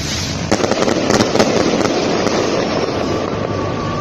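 Sky rockets going off overhead. A sudden burst comes about half a second in, with a quick run of sharp cracks for about a second, then a rushing noise that dies away.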